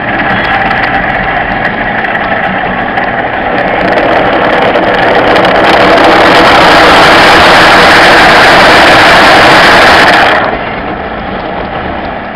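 Automatic car wash heard from inside the car: water spraying on the windshield and a rotating wash brush scrubbing across the glass. The noise swells about four seconds in to a loud, dense hiss that cuts off abruptly after about ten seconds, leaving a quieter spray.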